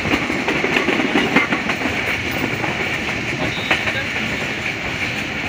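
Passenger coaches of a moving train running on the rails: a steady rush of wheel and track noise with irregular clicks as the wheels pass over rail joints.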